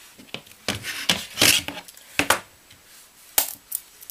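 Acer laptop battery pack's plastic casing being handled and pried at the seam with a small screwdriver. A cluster of scrapes and knocks comes in the first half, then a single sharp click about three and a half seconds in.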